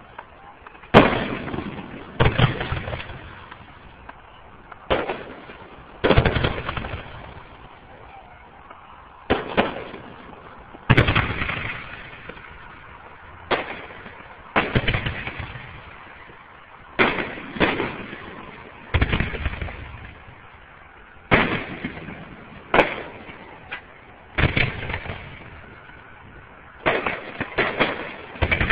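Aerial firework shells bursting overhead, a sharp boom every second or two, about twenty in all, each trailing off in a rolling echo. Several reports come close together near the end.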